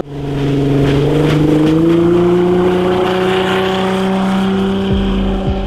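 A boat's 2.8-litre VW VR6 engine running at speed, its pitch climbing slowly as it pulls harder, over a rush of water and wind.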